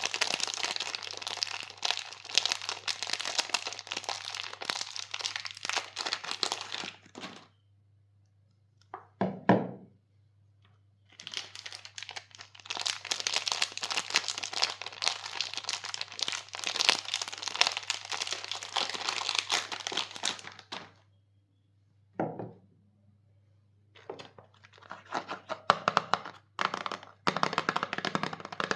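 Soap packaging being unwrapped: long stretches of crinkling and tearing wrapper. Between the stretches come two dull thuds, about a third of the way in and again about three quarters in.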